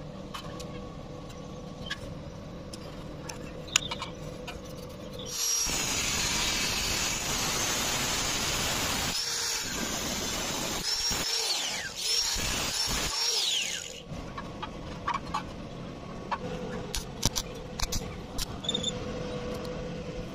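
Angle grinder with a cut-off disc cutting through metal square tube for about eight seconds, starting about five seconds in: a loud, steady hissing whine. Near the end of the cut the motor's pitch drops and recovers several times as the disc meets and leaves the metal. Light clicks and taps come before and after.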